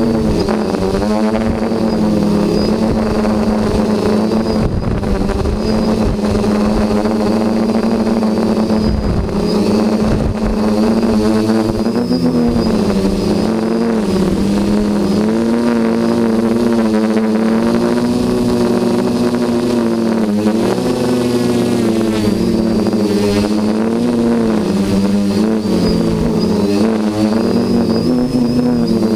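Electric motors and propellers of an HT-FPV Hoverthings quadcopter buzzing in flight, the pitch rising and falling as the throttle changes, with wind rumbling on the onboard GoPro's microphone.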